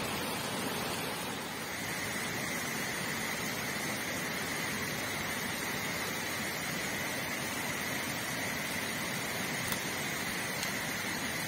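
Steady rushing of flowing river water. A thin, steady high-pitched tone joins about two seconds in and holds.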